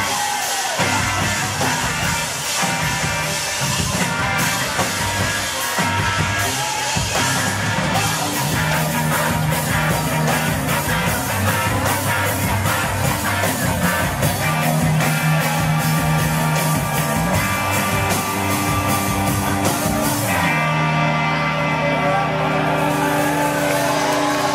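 Live rock band playing loud through a club PA, heard from within the crowd. About 20 seconds in, the dense full-band sound thins to long held notes.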